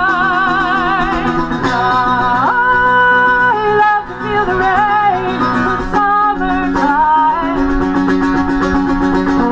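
A woman sings live, accompanying herself on a plucked acoustic string instrument of the mandolin family. She holds a long note with vibrato, then sings a melody of stepping, rising and falling notes over the strumming.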